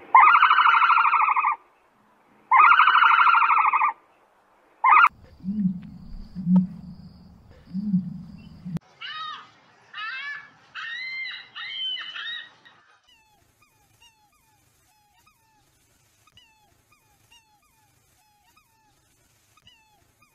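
Ostrich calls: two loud drawn-out calls, a short one, then three low booms, then a run of higher chirping calls. After that come faint short calls from black swans.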